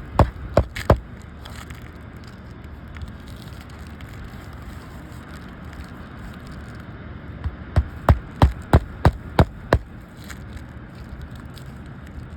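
Hammer blows on an asphalt-shingle roof during shingle removal and repair: three sharp strikes at the start, then a quick run of about seven, roughly three a second, about 7.5 seconds in.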